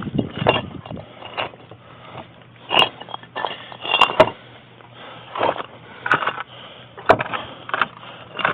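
Wooden boards being shifted and scraped into place against the block wall, with a few sharp knocks of wood and metal among irregular scraping and rustling.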